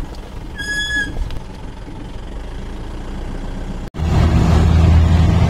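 Off-road jeep's engine running with a low, steady rumble, and a brief high whistle-like tone about half a second in. Near the end the sound cuts out for an instant and a louder, low, steady hum starts abruptly.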